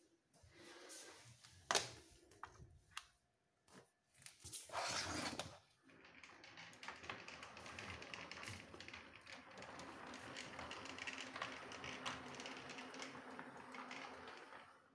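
A Playmobil RC toy train runs along plastic track, making a steady rattle of many fine rapid clicks from its wheels and carriages; this starts about six seconds in. Before that there are a few sharp single clicks and a short noisy burst.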